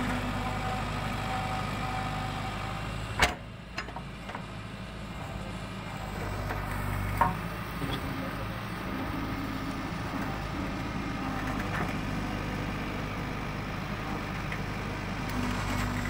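Backhoe loader's diesel engine running steadily while the backhoe arm digs a trench. There is a sharp knock about three seconds in and a smaller clank about seven seconds in.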